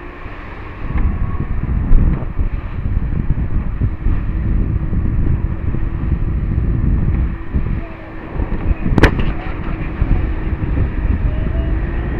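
Powerboat running through choppy water: wind buffeting the microphone and water rushing and splashing against the hull over a steady engine drone, with one sharp knock about nine seconds in.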